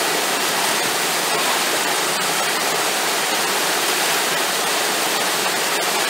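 Steady rush of water from small cascades pouring over rocks into a rock pool at a waterfall.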